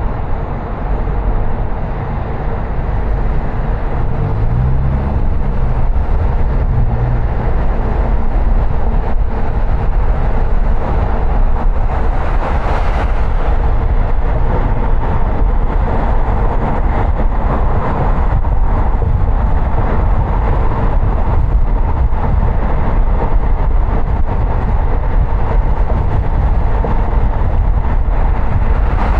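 Car driving on city streets: steady road and tyre noise with a low rumble. A short low wavering tone sounds about four to seven seconds in, and a louder rush swells briefly about twelve seconds in.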